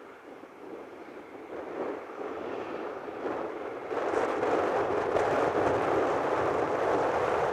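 John Deere 7280R tractor pulling an eight-furrow Kverneland plough through the soil, a steady rushing engine and working noise that grows louder as it comes closer, with a sharp step up about four seconds in.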